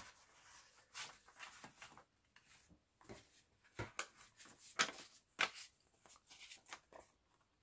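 Loose paper book pages being handled and sorted through: scattered soft rustles and light taps, the sharpest two about five seconds in.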